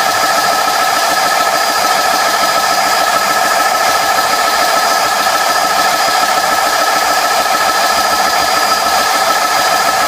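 GX-E-CS2 12-volt high-pressure air compressor running steadily under load, a constant mechanical drone with a high whine, as it pumps an air tank up to nearly 2,000 PSI.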